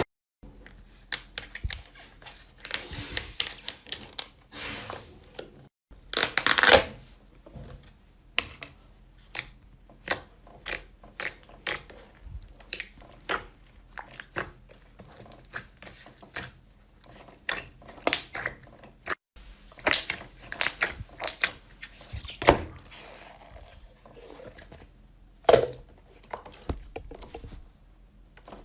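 Slime being squeezed, poked and pulled by hand, giving a long run of sharp pops and crackles with soft stretching and tearing sounds between them.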